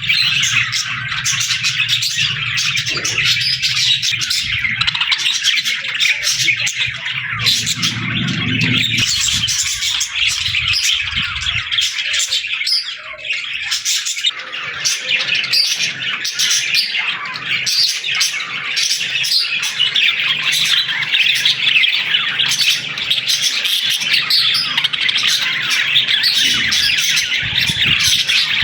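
A flock of small birds chirping and twittering continuously in a dense chorus, with the odd squawk.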